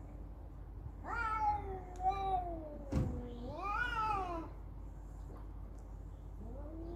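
Cats yowling in a fight standoff: a long drawn-out yowl that wavers and slowly falls in pitch, then a second yowl that rises and falls, and a third beginning near the end, with a short sharp click between the first two.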